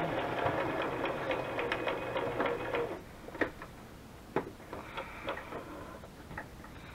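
Sewing machine stitching lace onto a paper tag with a straight stitch: a steady run of rapid needle ticks that stops about three seconds in. A few separate clicks follow.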